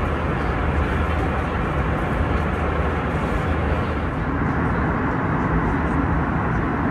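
Steady cabin noise inside an Airbus A320 airliner: an even rumble and hiss of engines and air with a low hum underneath.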